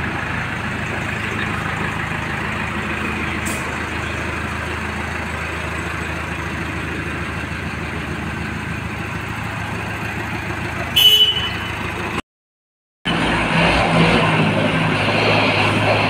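Diesel engine of an Escorts Hydra 14 pick-and-carry crane running steadily as the crane drives with a tyre slung from its hook. About eleven seconds in there is a short, higher-pitched beep like a horn. Soon after, the sound cuts out for under a second and comes back a little louder.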